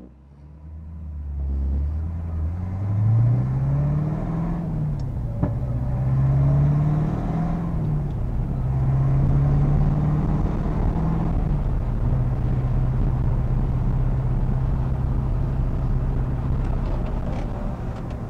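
1964 Corvette Stingray's fuel-injected 327 small-block V8 through a Borla exhaust, accelerating away. The engine note climbs and falls back twice as it shifts up through the Muncie four-speed, then settles into a steady cruise.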